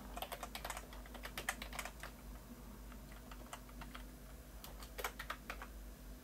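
Typing on a computer keyboard: a quick run of key clicks over the first two seconds, a few scattered keystrokes, then another short run about five seconds in.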